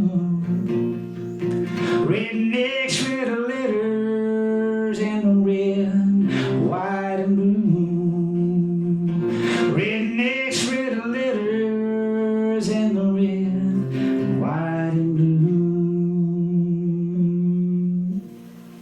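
A man singing long held notes to his own acoustic guitar; the music stops shortly before the end.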